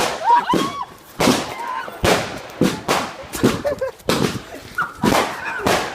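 Firework barrage going off: a rapid run of about a dozen sharp bangs, roughly one every half second, with short rising and falling tones between them.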